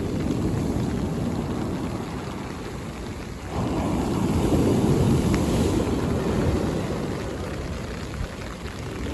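Sea waves breaking on the shore: a wave comes in suddenly about three and a half seconds in, swells, and washes back over the next few seconds, with the next one starting at the end.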